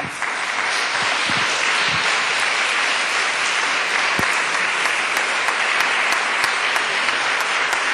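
Audience applauding: a round of clapping that breaks out suddenly and holds at an even level.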